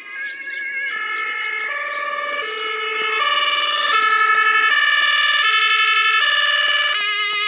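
German two-tone emergency vehicle sirens (Martinshorn) sounding, at least two at once and out of step with each other, each alternating between a high and a low tone about every 0.7 seconds. They get louder about halfway through as the vehicles come closer.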